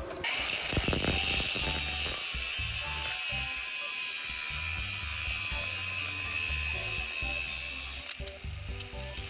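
A steady, harsh, hissing and rasping sound of a tool working steel, with a brief break near the end. Background music plays underneath.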